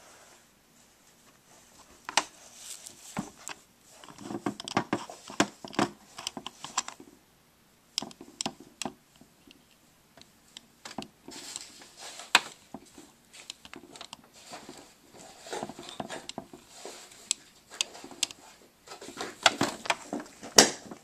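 Plastic dolls and toy dollhouse furniture being handled: irregular clicks, taps and rustles, with a quieter stretch about midway.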